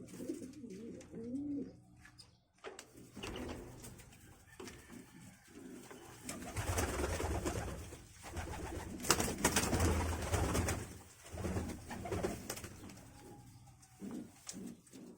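Doves cooing in low, wavering calls, with louder stretches of rushing noise partway through.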